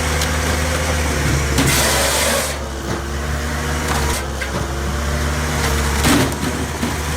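Heavy machinery engine running steadily, with a few knocks and a brief burst of hiss about one and a half seconds in.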